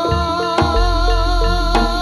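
Live Javanese traditional ensemble music: a held, wavering melody line over regularly spaced percussion strikes, with a deep low boom coming in just under a second in.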